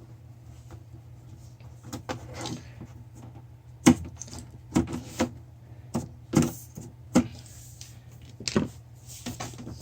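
Irregular clicks and knocks of hands taking apart a freezer's thermostat housing and handling its parts, over a steady low hum.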